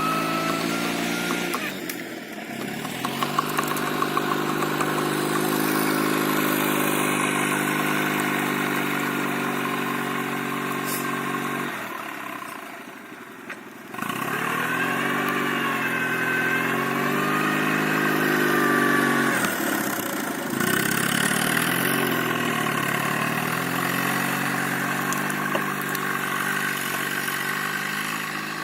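Engine of an Oka 4x4 off-roader working under load, its revs rising and falling as it pushes along. About twelve seconds in it drops almost to nothing, then comes back suddenly about two seconds later, with another short dip around twenty seconds.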